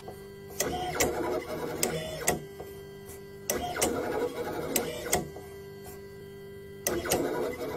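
Motors of a small tic-tac-toe-playing drawing robot whirring as its marker carriage moves and draws, with sharp clicks. The whirring comes in three bursts with short pauses between.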